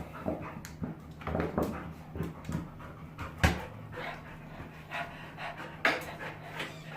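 Jindo dog panting in short, uneven breaths, with a sharp knock about three and a half seconds in and a lighter one near six seconds, over a low steady hum.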